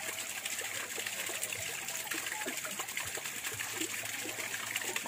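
Stream water trickling steadily.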